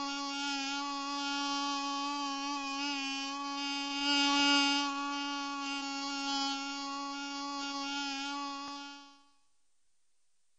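A bee buzzing in flight: one steady, even-pitched buzz that swells briefly about four seconds in, then fades away near the end.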